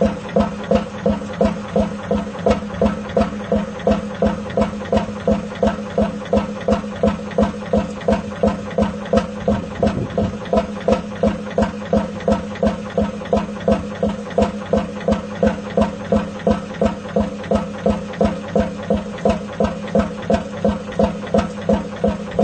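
15 HP Fairbanks Morse Type Y two-stroke hot-head oil engine running steadily on its own, a slow even beat of about two strokes a second. The starting burner is off: the engine is warmed up and keeping its hot head hot by itself.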